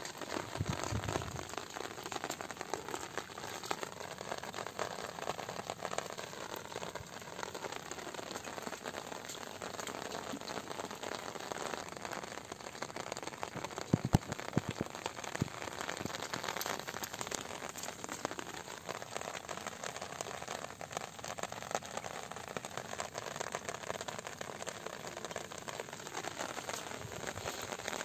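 Steady rain falling on wet grass, an even hiss of many small drops, with a few sharp knocks about halfway through.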